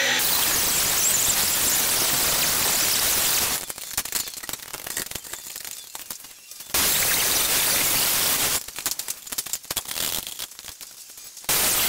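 Angle grinder's abrasive cut-off disc cutting through steel channel: a loud, steady, dense hiss of grinding. It stops abruptly twice for a few seconds of quieter, scattered handling sounds as the steel is set in its clamp.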